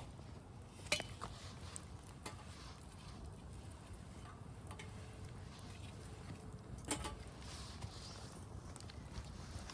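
Small wood fire burning in a titanium camp wood stove, a steady low rumble with a few sharp crackles and snaps, the loudest about a second in and near seven seconds in.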